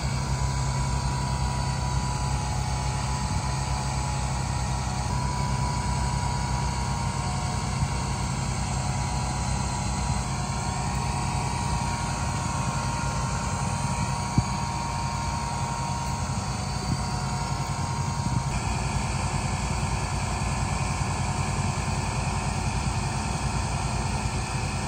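1986 Pontiac Parisienne's engine idling steadily, with one short click about halfway through.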